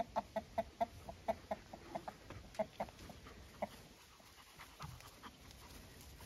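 A fast run of short, sharp animal calls, about five a second, that stops a little over halfway through; a few fainter sounds follow.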